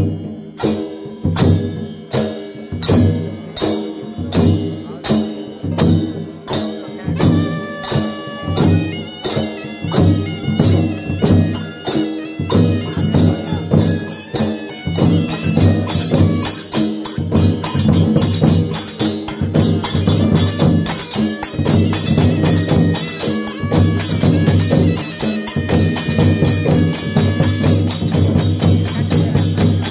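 Traditional Odia folk procession music: drums beating evenly at about two strokes a second, joined about eight seconds in by a reed pipe playing a melody. After that the drumming quickens and grows denser.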